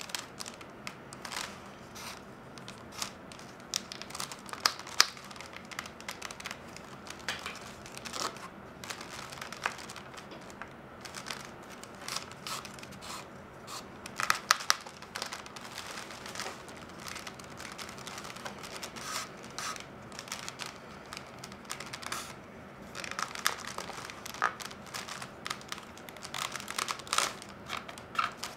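Flat reed lashing being drawn through the woven basket and pulled tight around the rim: irregular rustling and crinkling of reed rubbing on reed, with sharp clicks now and then and busier stretches around the middle and near the end.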